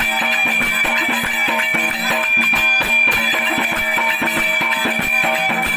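Instrumental interlude of Marathi folk music between sung verses: fast, steady percussion under held instrumental tones.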